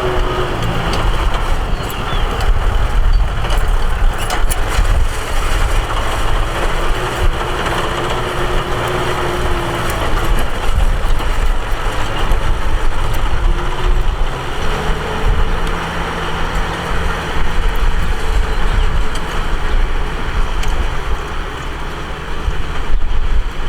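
Tractor engine running under load while ploughing, its pitch sagging and recovering several times.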